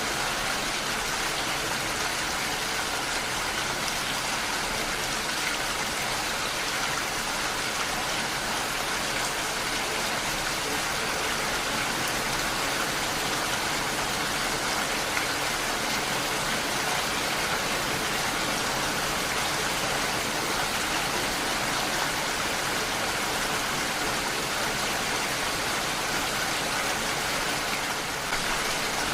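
Heavy rain falling steadily, a dense even hiss of rainfall.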